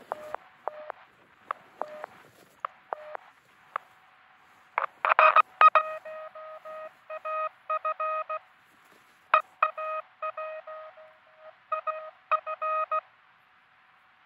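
Morse code (CW) tones from a truSDX QRP transceiver, keyed on and off in dits and dahs: a few scattered beeps first, then from about five seconds in a quick run of code until shortly before the end. A faint steady tone runs underneath.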